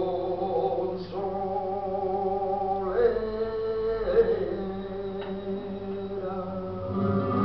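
Male flamenco singer singing cante por caña in long, wavering held notes that break and start again about a second in and around three and four seconds in. The music swells louder near the end.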